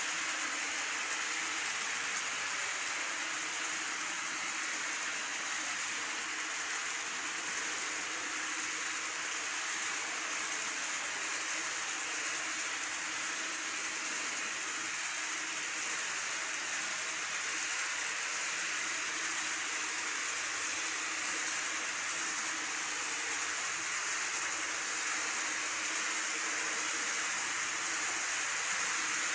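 Steady rushing hiss of an N-scale model train running on plastic track, with a faint steady hum underneath.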